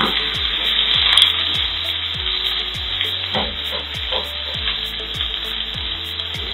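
Sliced red onions sizzling steadily in cooking oil in a granite-coated pan, stirred and pushed around with a spatula.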